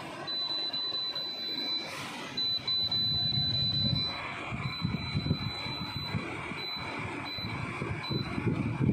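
A high-pitched squeal that cuts out and comes back in stretches of about a second, over an uneven low rumble.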